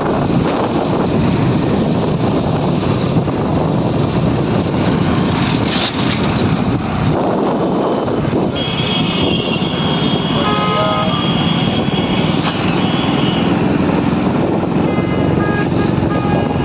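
Steady vehicle and road noise from riding along a highway, with wind on the microphone. About halfway through, a high steady tone of several pitches sounds for roughly five seconds, and short high beeps follow near the end.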